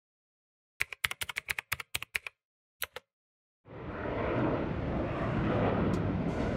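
Quick run of about ten typewriter-style key clicks over a second and a half, then two more, the typing sound effect for an on-screen date caption. A little after three seconds in, steady outdoor background noise with traffic fades in.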